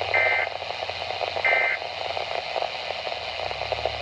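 Two short bursts of SAME digital alert data from a Weatheradio Canada broadcast, a buzzy two-tone warble about a second apart, near the start and about a second and a half in, over radio static. Short bursts in a set of three like this are the end-of-message code that closes the alert.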